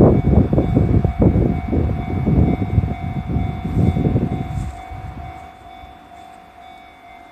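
JR Central 311 series electric train running over a level crossing: a rapid clatter of wheels over the rail joints and crossing, dying away about five seconds in as the train moves off.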